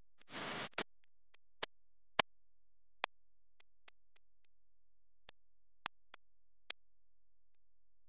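Sparse background music: a run of short, sharp synth notes or clicks, about a dozen spread unevenly with near silence between them, and a brief soft hiss just after the start.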